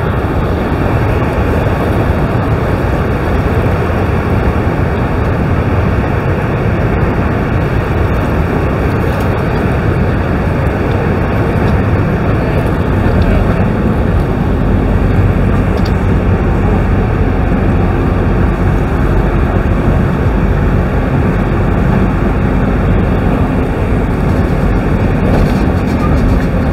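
A small tour boat's motor drones steadily over the rush of churning water below a large waterfall, heard from aboard the boat. A faint steady hum in the motor's drone sets in about halfway through.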